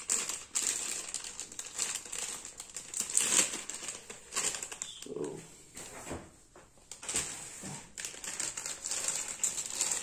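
Thin clear plastic bag crinkling and rustling as it is squeezed and handled, in irregular crackles. There is a quieter pause about six seconds in.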